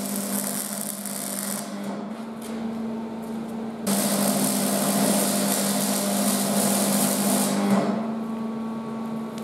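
MIG welder arc crackling and spitting as steel is welded, in two runs: a first that stops about a second and a half in, and a louder, longer one from about four seconds in to about eight.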